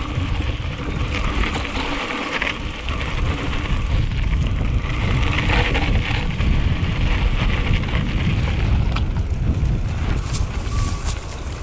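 Mountain bike riding over a rough trail: wind rumbling on the microphone, with rolling tyre and rattle noise and scattered sharp clicks and knocks.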